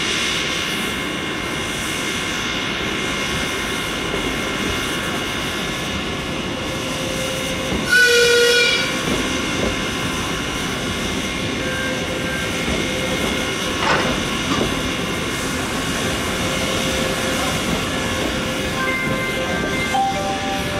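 Soviet P36 steam locomotive standing in steam, giving a steady hiss over a faint high hum. About eight seconds in, a short whistle blast of about a second sounds once.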